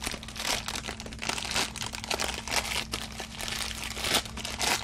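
Bubble wrap and plastic packaging being handled and pulled off, crinkling with many irregular crackles.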